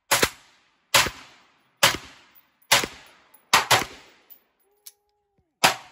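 Home-built AR-15-style rifle with a 16-inch barrel firing semi-automatic shots at an uneven pace, about eight in all, some in quick pairs. Each crack is followed by a short echo.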